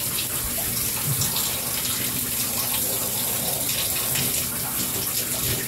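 Water running steadily from a handheld shower sprayer into a bathtub, rinsing a wet dog's coat.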